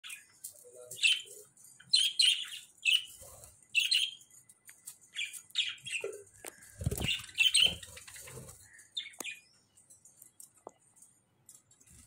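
A flock of budgerigars chirping in short, sharp calls, many in quick succession, with a dull thump about seven seconds in. The chirping thins out and grows quieter near the end.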